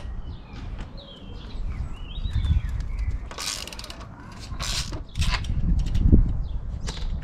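Socket ratchet with a 13mm socket clicking in short bursts as bolts are undone on a motorcycle frame, over a low rumble.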